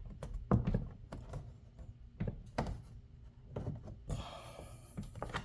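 Plastic side clips and cover panel of a Tesla's front air intake cover being pressed and knocked by hand: a run of irregular knocks and taps as a stiff clip is pushed into place, with a brief scraping rustle about four seconds in.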